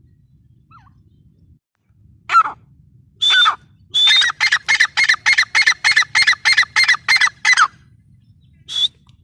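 Grey francolin calling: two loud single notes, then a fast run of about a dozen ringing notes, about three a second, and one short note near the end.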